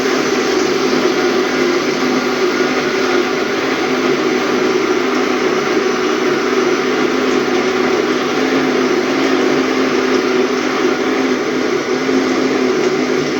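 Electric kitchen blender running steadily at one speed, whirring as it blends ginger, garlic, lime, fennel seed, cayenne pepper and honey in water into a liquid.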